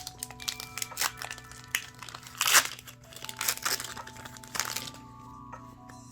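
Foil Pokémon booster pack wrapper crinkled and torn open, a run of sharp crackles, loudest about two and a half seconds in, dying away near the end.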